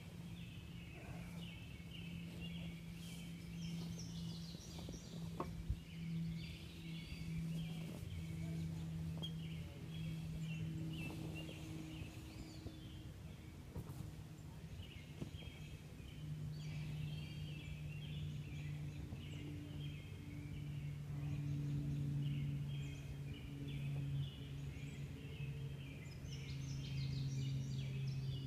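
Songbirds chirping and singing almost without a break, over a steady low drone whose pitch drops a little about halfway through.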